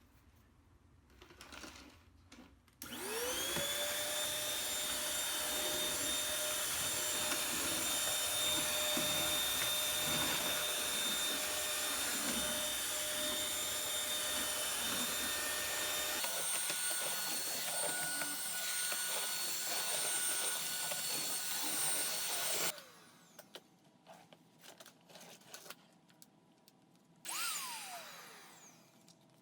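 Bissell Featherweight stick vacuum switched on, its motor spinning up with a rising whine and then running loud with a steady high-pitched whine for about twenty seconds before cutting off. Near the end it runs again briefly and winds down with a falling whine. It is a pretty noisy machine.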